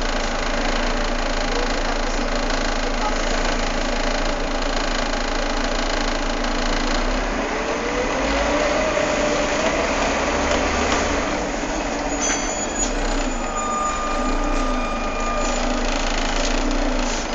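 Volvo B7TL bus's six-cylinder diesel engine running with its engine cooling fan going, a steady mechanical running noise. Around the middle a tone rises in pitch.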